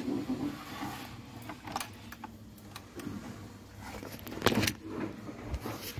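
Light clicks and rattles of crocodile clips and a test lead being unclipped and handled, with a louder clack about four and a half seconds in.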